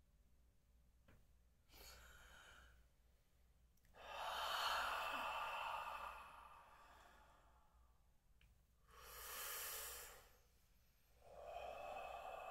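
Deep, audible breaths drawn and let out slowly, one after another with pauses between. The loudest comes about four seconds in.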